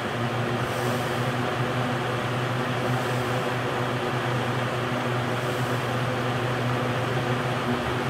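A circa-1975 Lasko 4712 five-blade box fan running on high: a steady rush of air over an even motor hum.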